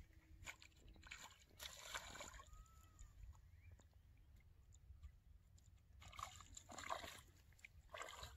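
Faint water splashing and sloshing from a small hooked piranha thrashing at the pond surface as it is played toward the bank, loudest in a couple of bursts near the end.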